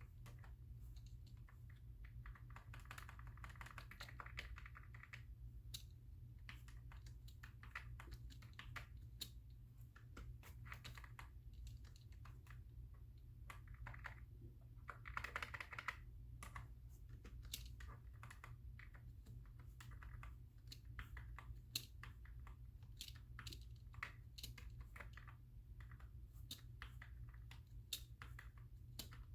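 Typing on a computer keyboard: irregular key clicks throughout, with two quicker, denser runs of keystrokes a few seconds in and about halfway, over a faint low steady hum.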